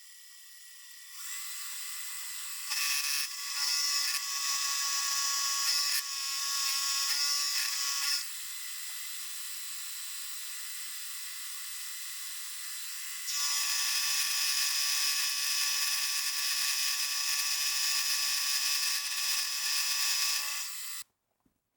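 Milling machine running and machining cold-rolled steel: a steady whine whose level and pitch pattern change abruptly several times, then stops near the end.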